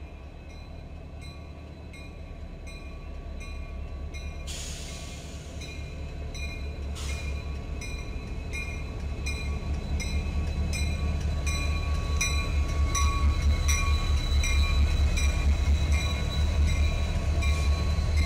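Diesel-electric freight locomotives running as they approach and pass, their low engine rumble growing steadily louder. A bell rings about twice a second throughout.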